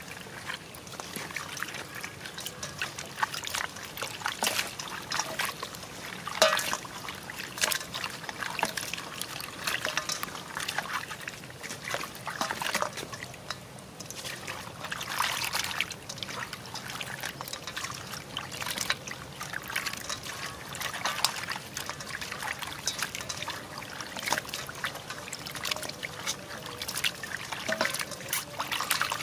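A hand squelching and rubbing pieces of goat head meat in a steel bowl of water, the water sloshing and trickling in many irregular splashes as the meat is washed.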